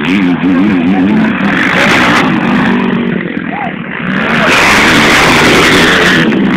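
Motocross motorcycle engines revving, their pitch rising and falling as the bikes accelerate and shift. About two-thirds of the way in the sound grows louder and harsher as a bike passes close.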